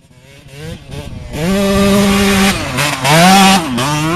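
ATV engine revving in bursts: the sound fades in, the revs climb and hold, drop briefly about two and a half seconds in, climb and hold again, then drop and pick up once more near the end.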